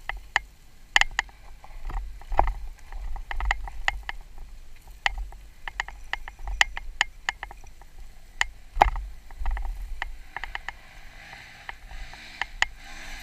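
Irregular crunching and sharp clicks of loose shale stones under a dirt bike's tyres as it rolls slowly down a loose slope, over a low wind rumble on the microphone.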